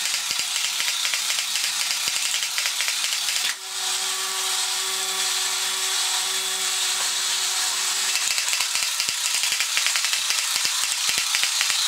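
Battery-operated tin robot toy's small electric motor and metal gear train running, a fast, continuous clicking rattle. About a third of the way in, a steady humming tone joins it for roughly four seconds. The motor is freshly cleaned and lubricated and is running like new.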